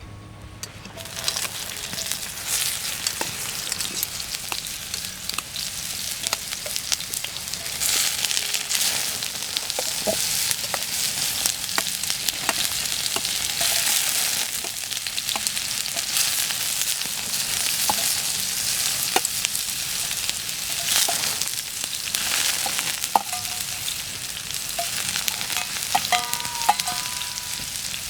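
Food sizzling steadily as it fries in a pan, starting about a second in, with frequent small clicks and scrapes of a utensil stirring it.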